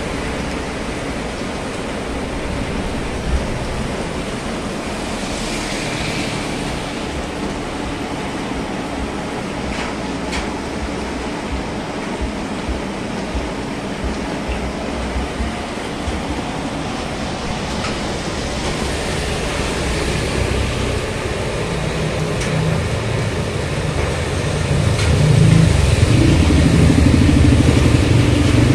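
Steady rushing noise of rain and traffic on a wet road. A louder low hum comes in near the end.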